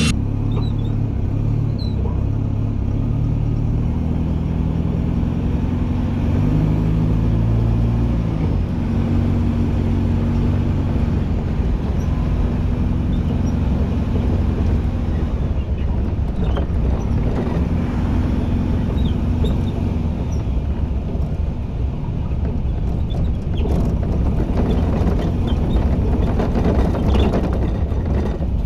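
Motor vehicle engine running on the move, its pitch stepping up and down over the first several seconds, over a steady rumble of road and wind noise.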